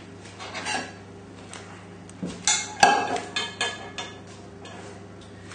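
Small saucepan set down on a kitchen worktop: a few knocks and clatters of pan against counter and utensils around halfway through, the sharpest a single clack.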